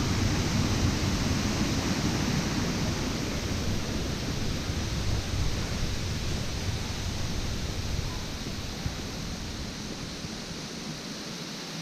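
Steady rush of flowing water in Gill Beck, growing gradually fainter towards the end.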